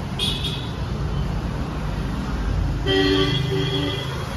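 Street traffic rumbling, with a short high beep just after the start and a vehicle horn honking for about a second near the end.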